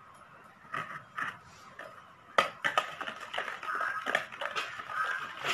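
Stainless wire whisk beating a wet yogurt, sugar and oil mixture in a plastic mixing bowl: after a couple of light taps, rapid clicking and scraping of the wires against the bowl starts a little over two seconds in.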